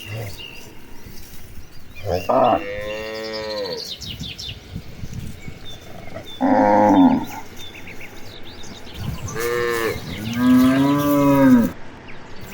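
Cows mooing, four separate calls: a long one about two seconds in, a short one past the middle, then two more in quick succession near the end, the last the longest.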